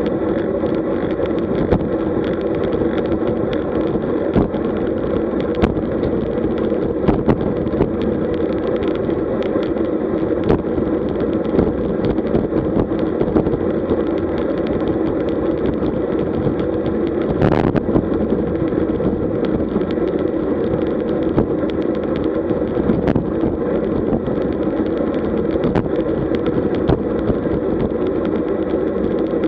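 Steady rush of wind and tyre noise from a road bike riding at about 43 km/h, picked up by a microphone on the moving bike. Scattered small knocks run through it, and there is a brief louder rush about seventeen seconds in.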